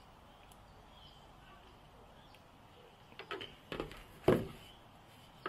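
A few short clicks and light knocks from handling the alligator-clip wires and gear on a glass tabletop, starting about three seconds in, the loudest just past four seconds, over faint background.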